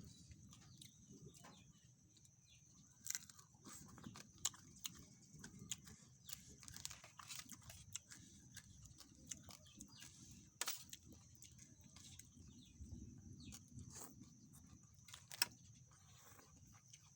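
Faint eating sounds: scattered crunches and mouth clicks of chewing, irregular and a few seconds apart, over a steady high hiss.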